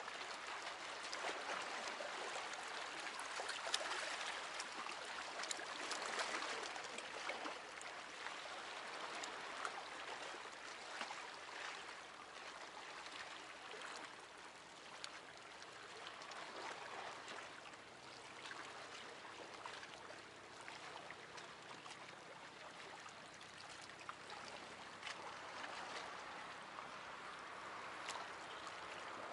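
Small sea waves lapping and splashing against shore rocks, a steady wash that swells and eases, with small splashes and clicks of water in among it.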